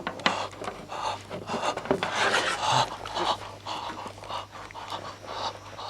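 Rapid, heavy panting breaths close to the microphone, with rustling, over a steady low hum.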